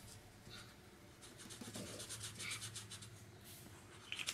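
Felt-tip markers scribbling on paper as children color in: faint, quick back-and-forth strokes.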